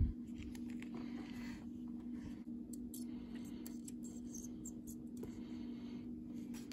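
Soldering iron and copper desoldering braid working on a circuit-board solder pad: faint scratchy crackling and a few small ticks as the solder and flux melt, over a steady low hum.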